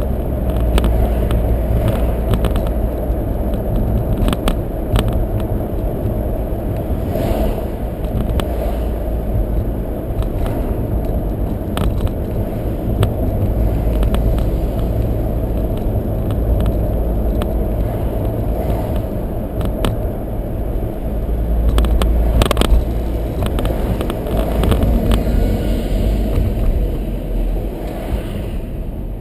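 Car driving on a road, heard from inside the cabin: a steady low rumble of tyres and engine, with scattered short clicks and knocks.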